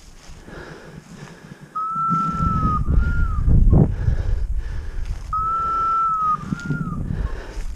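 A hunter's whistle call to the hunting dogs, sounded twice. Each call is a long steady note followed by a short, slightly higher note that rises and falls. Low rustling noise runs under the first call.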